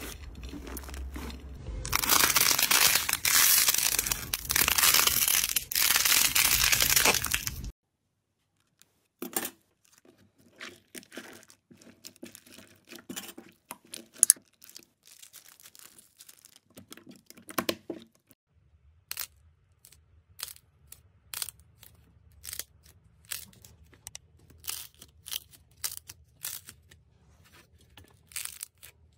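Slime with crunchy flakes mixed in, pressed and kneaded by hand: several seconds of dense crackling and crunching that stops suddenly, followed by quieter, scattered sticky clicks and pops as smooth slime is squeezed and poked.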